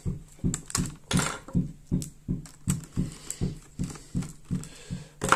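Rapid, even ticking, about four ticks a second, each tick with a low thud under it.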